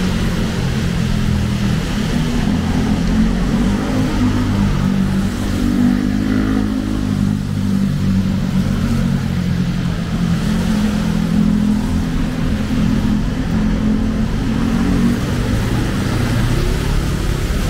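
Street traffic on a wet road: car and motorbike engines running close by, their pitch shifting as they move, over a steady hiss of rain.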